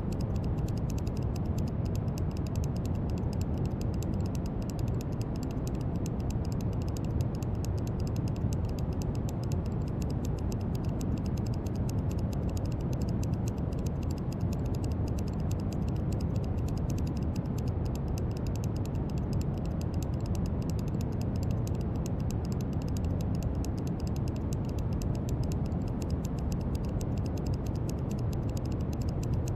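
Brown noise: a steady, deep rushing hiss, strongest in the low end and even throughout, with a faint fine crackle high above it.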